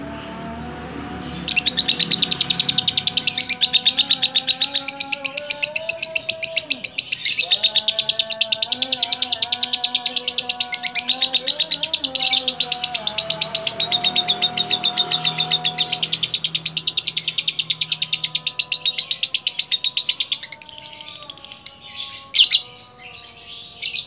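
Lovebird singing the ngekek: one long unbroken run of rapid, high chattering chirps lasting about nineteen seconds, the long-duration ngekek prized in lovebird contests, then breaking into a few shorter bursts near the end.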